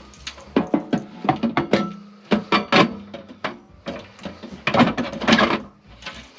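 Replacement blower motor being lowered into a sheet-metal blower housing and worked into its mounting by hand: a run of irregular metal clunks, knocks and scrapes, some with a brief ring.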